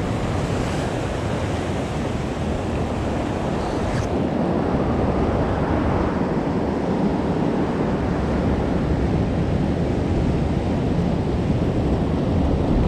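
Sea surf breaking and washing against the rocks of a rock jetty: a steady rushing noise.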